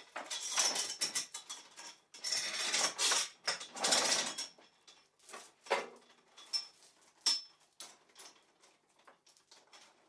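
Metal chain rattling and jangling as it is handled to be unlocked. After several seconds of dense rattling come separate clinks, one sharp metallic clink with a brief ring, then a few faint ticks.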